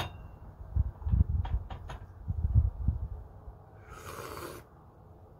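A few low bumps and light clicks of a small tea cup being handled, then a short airy slurp about four seconds in as the tea is sipped.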